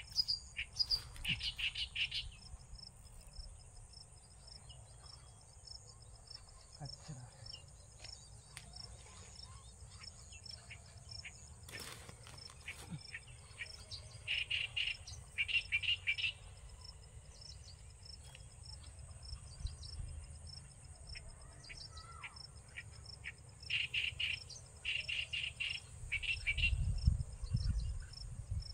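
A steady high insect trill, with short bursts of quick bird chirps about a second in, around the middle and again near the end. A low rumble comes in near the end.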